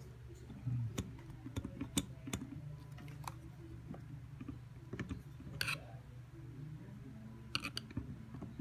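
Scattered small clicks and scrapes as a Sony lens is turned and seated onto the camera's mount inside a Nauticam underwater camera housing, with a little cluster of clicks about two-thirds of the way through.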